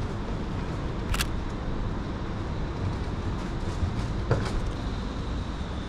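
Steady low rumble of city street traffic, with two short sharp clicks, one about a second in and one just past four seconds in.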